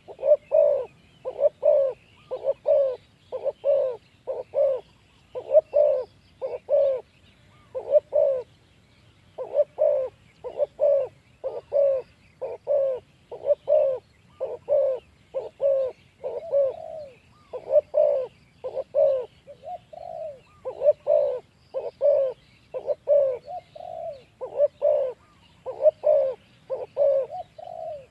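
Spotted dove cooing loudly in short, repeated coo phrases, about one every second, with faint chirps of small birds behind.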